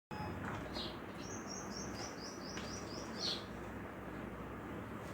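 Birds chirping in the background: one sings a quick run of about eight short, high, repeated notes, with a few other chirps around it, over a steady low hum.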